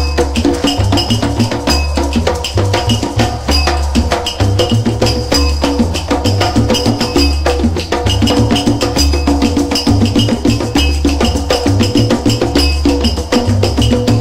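Background music with a busy, fast percussion beat of clicking, wood-block-like strokes over a steady bass line.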